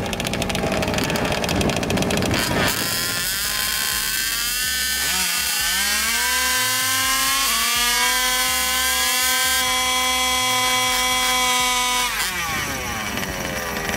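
Two-stroke gas engine of a 1/5-scale RC drag car, running rough at first, then revving up about five seconds in and held at high, steady revs for about six seconds before dropping off sharply near the end.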